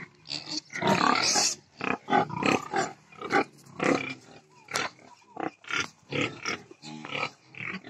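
Pigs and piglets grunting in short, irregular bursts about every half second.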